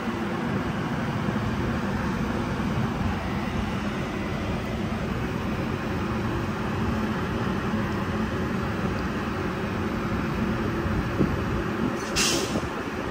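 An electric commuter train standing at the platform gives a steady hum from its running equipment. About a second before the end there is a brief hiss of air.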